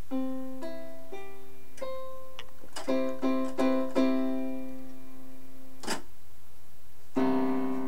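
Electronic keyboard playing a slow string of single held notes, some ringing on over the next. A short knock comes about six seconds in, then a fresh note or chord near the end.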